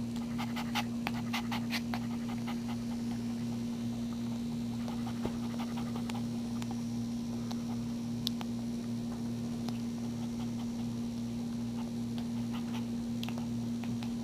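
A mother dog panting after giving birth, with a run of quick clicks in the first couple of seconds, over a steady low electrical hum.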